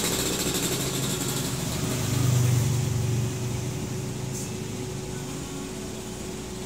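Motor vehicle engine running at low revs, swelling louder for about a second around two seconds in, then easing back to a steady hum.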